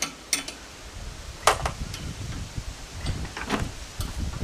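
Sharp metallic clicks and knocks of a wrench working the adjustment bolts on a concrete mixer's drum bearing mount: a few separate strikes, about a second and a half in and again around three seconds, over a low rumble.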